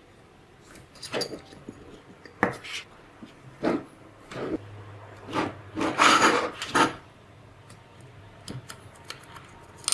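Hands handling a model engine kit: silicone fuel tubing rubbed and pushed onto brass fuel fittings, and the kit's base shifted on a table. It is a string of irregular rubs, scrapes and light knocks, loudest about six seconds in.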